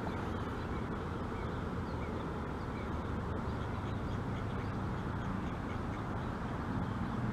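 Steady low outdoor background noise, with a few faint short calls scattered through it.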